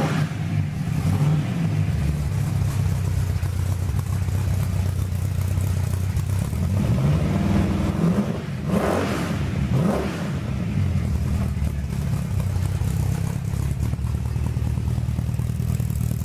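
Rebuilt Ford 347 Windsor small-block V8 running on an engine test stand, exhausting through a pair of mufflers. It runs steadily, is revved up twice around the middle, then drops back to a steady run.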